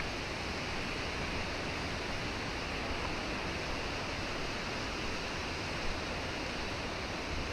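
Steady, even rushing of moving water.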